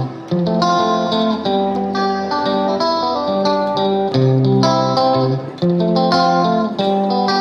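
Background instrumental music led by plucked guitar notes.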